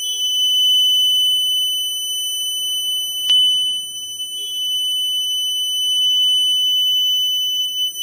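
Homemade power-return alarm's buzzer sounding one continuous high-pitched tone, which signals that mains electricity has come back on.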